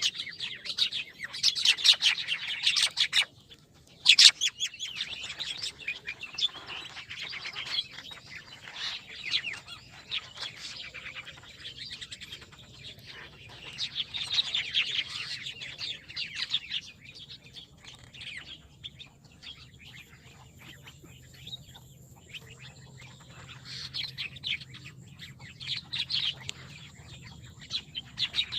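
Small birds chirping and twittering, many rapid overlapping calls coming in loud clusters with quieter stretches between, and a brief break a little over three seconds in.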